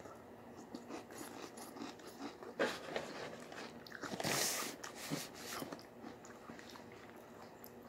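Quiet, close-up chewing and crunching of a mouthful of Cap'n Crunch cereal softened in milk, in faint scattered crackles. A louder rustle comes about four seconds in.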